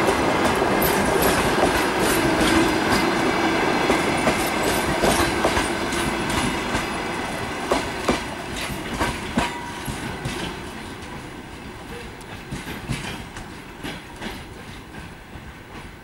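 Passenger coaches of a departing train rolling away, their wheels clicking over rail joints and points. The sound fades steadily as the train draws off, leaving separate clicks toward the end.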